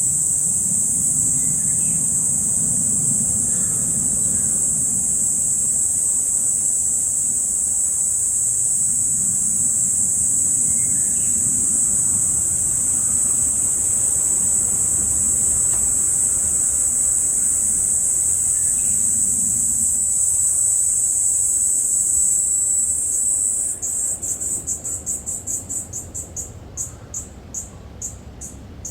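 Cicada singing in one loud, steady, high drone; about 24 seconds in the song breaks into a string of pulses, roughly three a second, that grow fainter.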